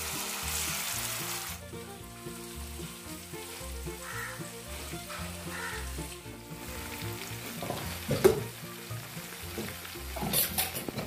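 Marinated chicken pieces sizzling as they fry in oil in a non-stick kadai, with a spatula stirring them; the sizzle is loudest in the first second and a half. There is a sharp knock about eight seconds in, and soft background music underneath.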